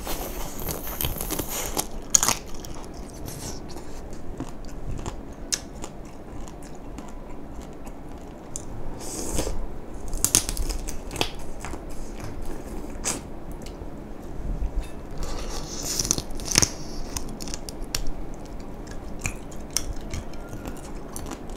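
Close-up eating of mala-spiced crayfish: wet chewing and sucking at the shells, with clicks and crackles of shell and several louder hissing slurps.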